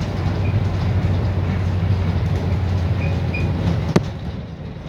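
Inside a moving London double-decker bus: a steady low drone of engine and road noise, with a sharp click about four seconds in, after which the drone drops a little.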